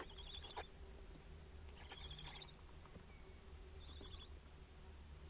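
Barn owls in a nest box giving faint, short squeaky twittering calls while the adult feeds the owlets: three brief bursts about two seconds apart, over a steady low hum.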